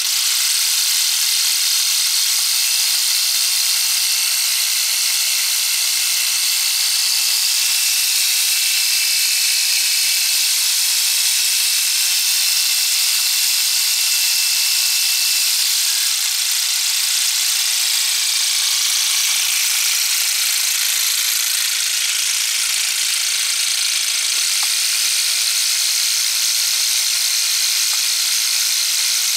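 LEGO Technic model engine with square plastic pistons, turned by a small electric motor and running steadily: a continuous plastic clatter and whir of the pistons, crankshaft and gears.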